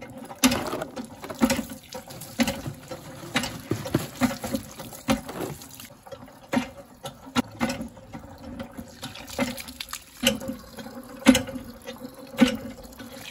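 Hand-pump tube well being worked: water pours from the spout through a cloth into plastic bottles, splashing and gurgling as they fill. A knock from the pump comes about once a second with each stroke of the handle.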